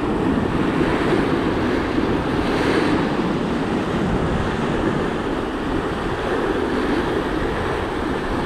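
Sea surf breaking and washing over coastal rocks, a steady rushing noise that swells and eases, with wind buffeting the microphone.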